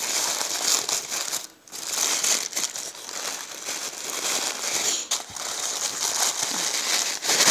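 Tissue paper crinkling and rustling as a hand pulls it open around a wrapped package, with a brief pause about a second and a half in.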